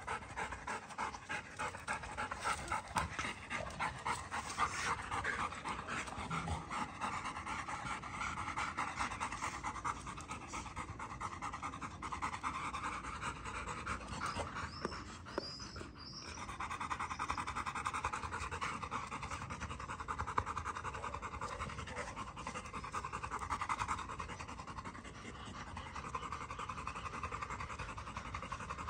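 Yellow Labrador retrievers panting rapidly and steadily, with a brief break about halfway through.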